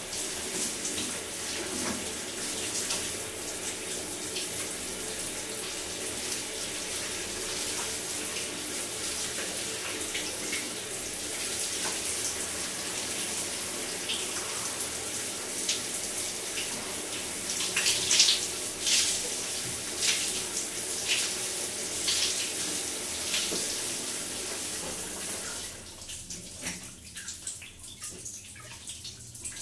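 Water pouring and dripping steadily, with many sharp splashes and drips mixed into the flow. Near the end the flow stops fairly suddenly, leaving only a few scattered drips.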